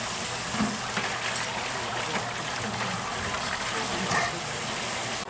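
Tap water pouring in a steady, hissing stream onto cooked noodles in a stainless-steel mesh strainer basket, splashing as gloved hands rinse and toss the noodles.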